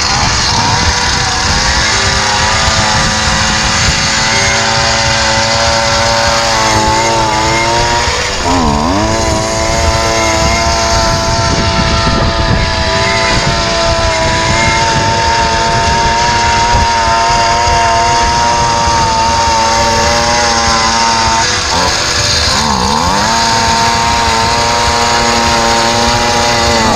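Gas-powered ice auger running at speed as it bores through thick lake ice. The engine pitch drops sharply and climbs back twice, about a third of the way in and again near the end.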